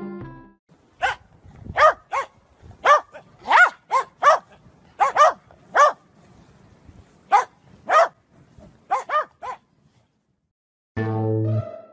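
Corgis barking: a run of short, high barks in uneven groups, each bark rising then falling in pitch, stopping about nine and a half seconds in. Music comes in near the end.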